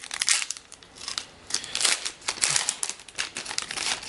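Trading cards being handled and flipped through, with quick irregular scrapes and rustles as the cards slide over one another.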